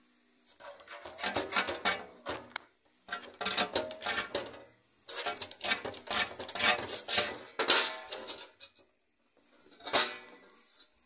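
A small stone wheel on a metal rod, held by hand, scraped hard against a rough rock in four bursts of rasping strokes, the third burst the longest.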